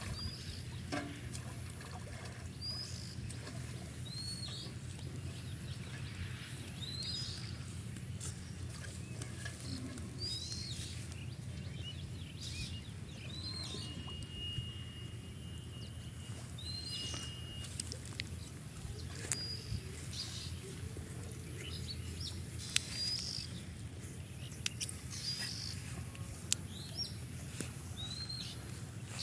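A bird repeating a short chirp every second and a half to two seconds, over the splashing and lapping of pond water stirred by someone wading and swimming. A steady low hum runs underneath.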